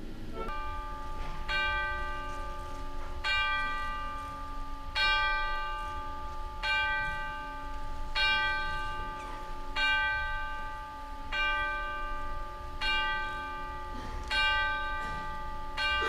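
A deep clock bell striking slowly, about one stroke every one and a half seconds, each stroke ringing on into the next: the clock striking midnight.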